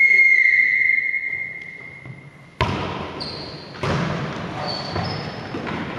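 Referee's whistle blown once in a long steady blast, authorising the serve. About two and a half seconds in comes the sharp smack of the volleyball being served, then another ball contact and a few short shoe squeaks, echoing in the large sports hall.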